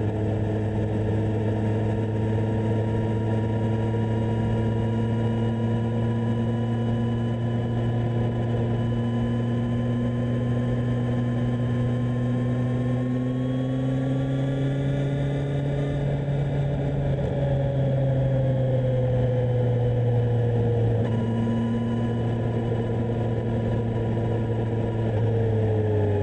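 Kawasaki Z1000SX's inline-four engine under way, running steadily at moderate revs. Its pitch climbs slowly for several seconds, eases back down, and drops near the end as the throttle closes.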